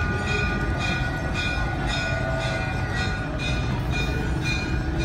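Bells ringing for the evening Ganga Aarti puja, struck in a steady rhythm about twice a second with ringing tones that carry on between strokes, over a low steady rumble.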